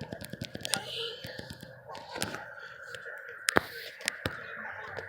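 Whelen 4004 and Whelen 3016 outdoor warning sirens sounding together in a steady tone during a siren test, with scattered sharp clicks over it.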